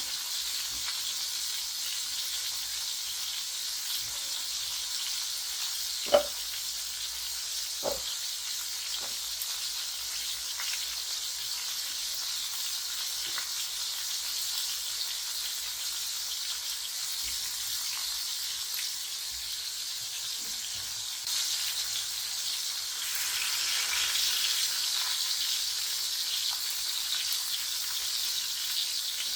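Food frying in hot oil in a pan, a steady sizzle. Two sharp knocks come about six and eight seconds in, the first the loudest sound, and the sizzle grows louder after about twenty-one seconds.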